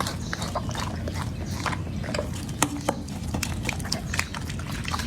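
A Labrador retriever chewing raw meaty bones: quick, irregular crunches and cracks as the bone breaks between its teeth, with one sharper crack about halfway through.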